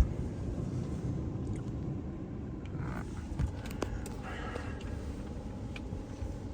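Ryko Softgloss MAXX 5 automatic car wash machinery running between wash stages, a steady low rumble heard from inside the car with a few light clicks.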